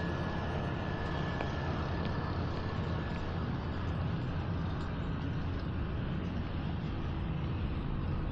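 Steady low engine rumble with a constant hiss over it.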